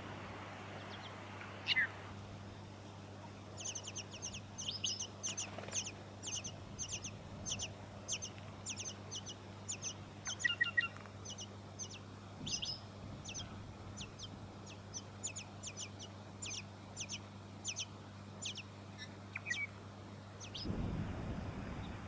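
Tawny-crowned Honeyeater nestlings begging: a long series of thin, high calls, each falling quickly in pitch, about two to three a second, with a single lower falling call just before it. A faint steady low hum sits underneath.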